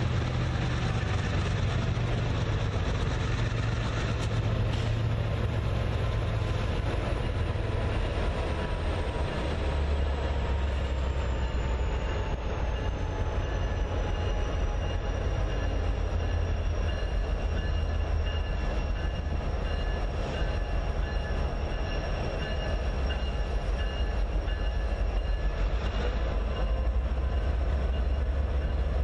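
Norfolk Southern freight train's boxcars rolling steadily past on steel rails, over a continuous low engine drone that drops in pitch about nine seconds in. A faint high whine glides slowly downward partway through.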